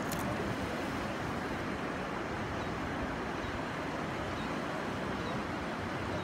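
Steady beach ambience: an even rush of wind and low surf.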